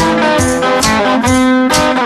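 Instrumental band music led by guitar, with a steady drum beat about twice a second and a held chord near the end.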